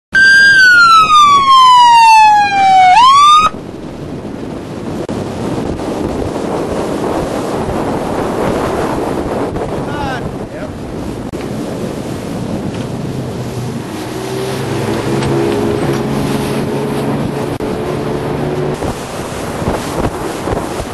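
A loud siren wails, its pitch falling slowly and then sweeping sharply back up, for about three and a half seconds before it cuts off abruptly. After that a boat runs over open water, a steady rush of water and wind on the microphone, with a low steady engine hum for a few seconds past the middle.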